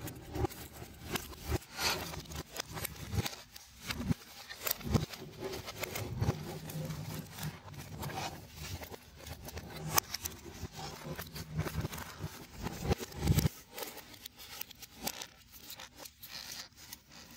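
Paper-laminated foam-board 3D puzzle pieces being handled and fitted together: irregular scraping and rubbing with frequent sharp clicks as tabs are pushed into slots in the base.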